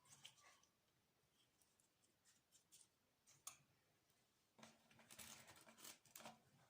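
Near silence, with faint scattered clicks and short rustles that grow busier in the last two seconds.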